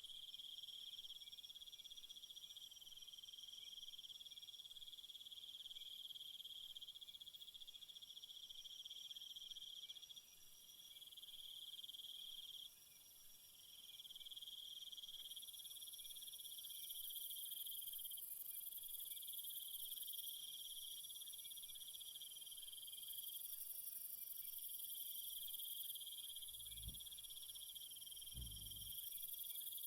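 Faint, steady high-pitched chirring of several crickets, with the individual insects starting and stopping in stretches of a few seconds. Two brief low thuds come near the end.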